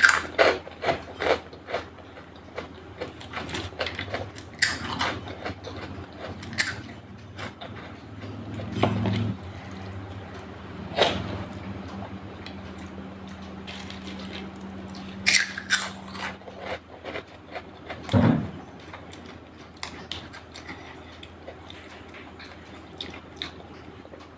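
Close-up eating sounds: wet chewing and lip smacks from a mouthful of chicken curry and rice, with irregular sharp clicks and a few louder smacks over a faint steady hum.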